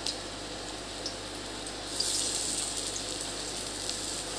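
Battered prawn fritters deep-frying in hot oil in a kadai: a steady sizzle with scattered pops, growing louder and hissier about two seconds in.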